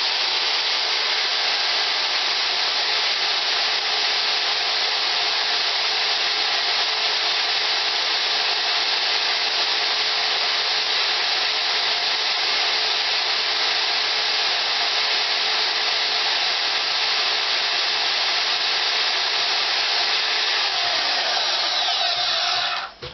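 DeWalt DWM120K portable band saw running steadily, then switched off near the end and winding down.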